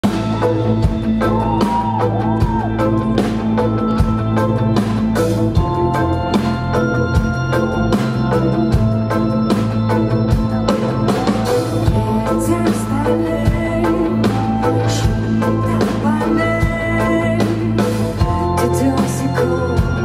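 Live rock band with violin playing a song: electric guitars, bass, keyboards and a drum kit, with a voice singing over them.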